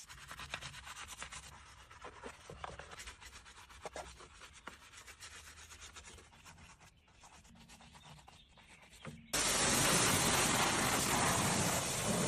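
Quick, repeated rubbing or scraping strokes on a surface. About nine seconds in, a loud, steady rushing noise starts abruptly and drowns them out.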